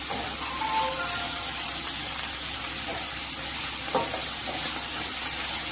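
Shredded cabbage and capsicum sizzling in hot oil in a kadai while being stirred with a spatula, with a couple of light knocks of the spatula against the pan about three and four seconds in.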